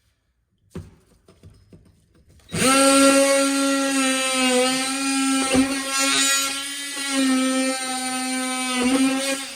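Handheld electric power tool running for about seven seconds with a steady motor whine, its pitch dipping slightly a few times under load. A single knock comes about a second in, before the tool starts.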